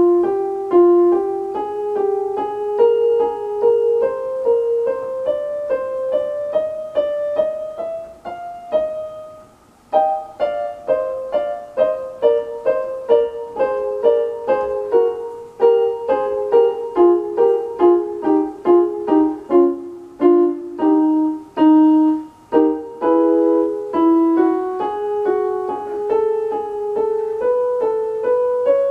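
Portable electronic keyboard played with a piano sound: a melody of evenly paced single notes over accompanying notes. There is a short pause about nine seconds in, then playing resumes.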